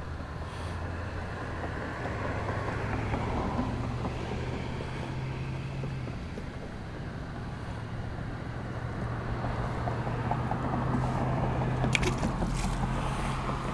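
Motor-vehicle engine hum from traffic crossing the bridge, rising and fading twice, over a noisy background. About twelve seconds in comes a short splash as a released bluegill drops into the water below.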